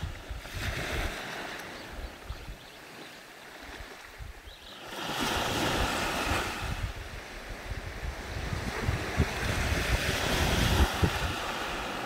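Small sea waves breaking and washing up a sandy beach: a wave breaks with a surge about five seconds in, and another swells and washes in near the end.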